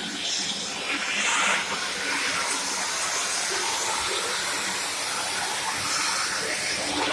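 Shark AZ910UK vacuum cleaner running, a steady rushing hiss of motor and suction airflow.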